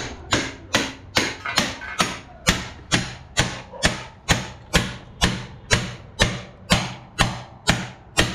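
Hammer blows driving out a heated, seized broken rod from a motorcycle's swingarm: a steady run of sharp metal strikes, about two and a half a second.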